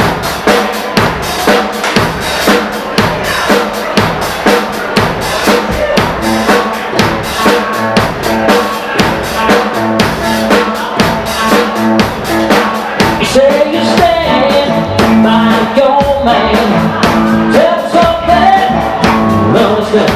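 Live rock band playing the instrumental opening of a song: a drum kit keeps a steady beat of about two hits a second under the rest of the band, and held, gliding melody notes come in about two-thirds of the way through.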